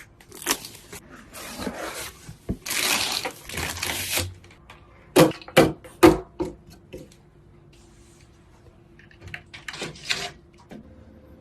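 Hands handling computer parts: a run of clicks and knocks, a stretch of rustling about three seconds in, then three loud knocks about five to six seconds in, followed by fainter clicks.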